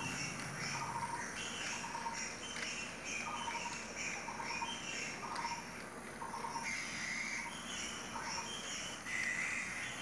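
Battery-powered toy bullet train running round a circular plastic track, under repeated short chirping tones about once or twice a second.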